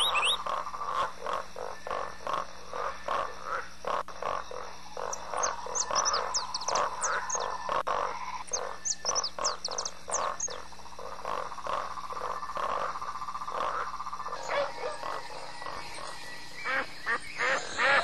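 A chorus of frogs croaking in an even rhythm of about two croaks a second, with a cluster of short high chirps partway through.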